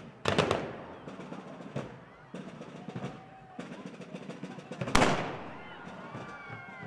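Field drums of a fife and drum corps striking loud accents: a quick cluster of strokes shortly after the start and a single heavy hit about five seconds in that rings on briefly.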